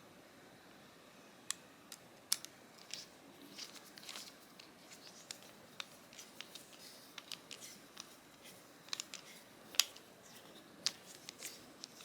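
Faint, irregular small clicks and light scrapes from a folding knife and small tools being handled during reassembly, with a few sharper ticks, the loudest about ten seconds in.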